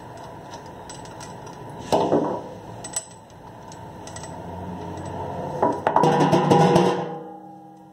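Metal clicks and scraping from a chrome single-lever kitchen mixer tap and its braided flexible hose being worked and tightened with pliers. A louder clattering stretch near the end fades out in a short metallic ringing.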